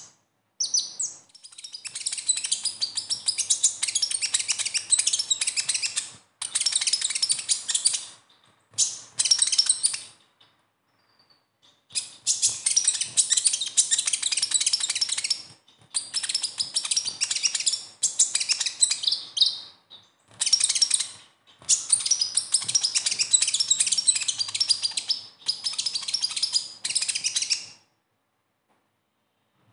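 Male kolibri ninja (konin), a sunbird, singing its besetan: rapid, dense, high-pitched twittering in runs of a few seconds with short pauses. The song stops near the end.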